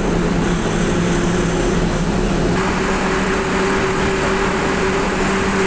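Truck engine running steadily with tyre and road noise while driving through a road tunnel; a low, even drone whose pitch rises slightly about halfway through.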